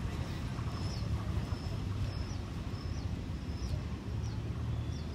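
Passenger coaches of an arriving train rolling slowly past on the platform track, a steady low rumble. Above it, a short high chirp that falls in pitch at its end repeats about once or twice a second.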